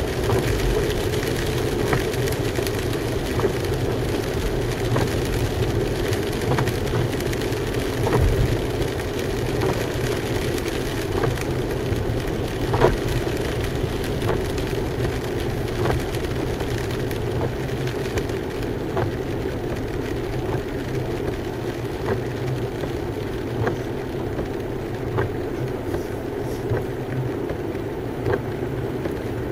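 Car interior noise while driving on wet roads: steady engine hum and tyre hiss with scattered light taps. The tyre hiss eases in the second half as the car slows and stops at a traffic light.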